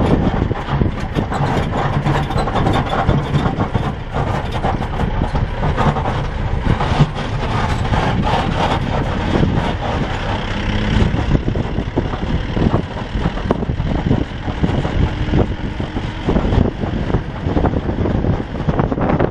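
A vehicle engine running steadily, a low rumble under continuous rough noise.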